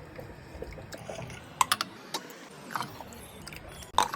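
A few scattered sharp clicks and taps over a low steady rumble.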